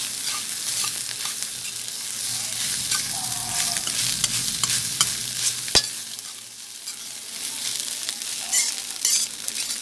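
Fried rice with Chinese sausage and egg sizzling in a hot metal pan while a metal ladle stirs and scrapes through it, with one sharp knock about halfway through.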